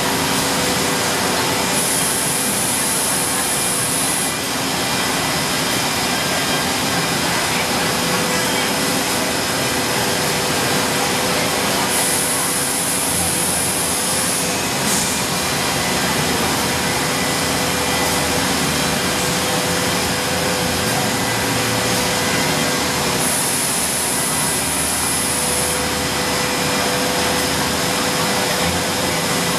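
CNC wood router machining the edge of a wooden workpiece with an angled-head spindle: a steady whirring machine noise with a constant hum. A higher hiss comes in three times, for two or three seconds each.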